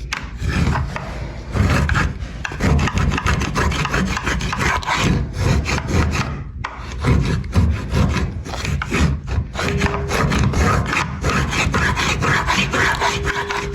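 Old silicone caulk being scraped off with a hand scraper (a 4-in-1 tool), worked back and forth in a quick, continuous run of scratchy strokes.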